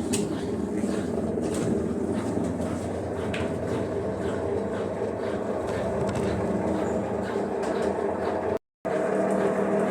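Consul CWH 11 washing machine in its spin cycle, running with a steady loud mechanical hum and a few faint clicks: the excessive spin-cycle noise the owner is complaining about. The sound cuts out briefly near the end.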